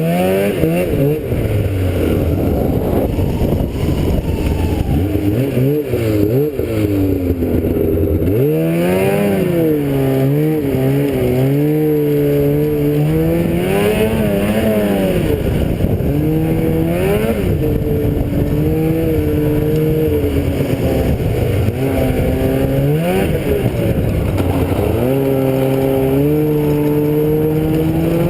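Engine of a trike carrying the camera, running under way. Its pitch climbs and drops again and again as the throttle is opened and eased off.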